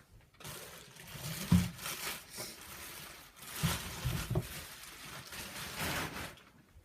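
Handling noise: a cloth bag and packaging being rustled and moved about, with a few soft knocks.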